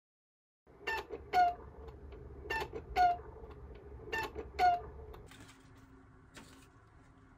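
Cuckoo clock calling "cuck-oo" three times, each call two short notes with the second one lower, about a second and a half apart.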